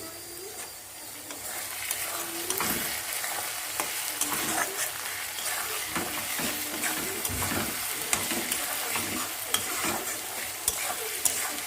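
Onion and spice mix frying in hot oil in a pan, sizzling steadily while a spatula stirs and scrapes it. The sizzle grows stronger about a second and a half in, with scattered clicks of the spatula against the pan.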